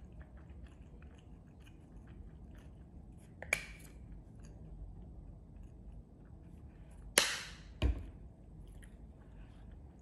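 A person chewing food close to the microphone, with many small soft clicks. Louder sharp noises come about a third of the way in, and twice more about three-quarters through.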